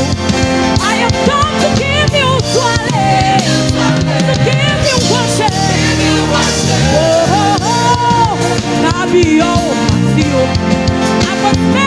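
Live gospel praise-and-worship band music: a steady full band with a strong low end, and a lead melody that bends and slides in pitch over it.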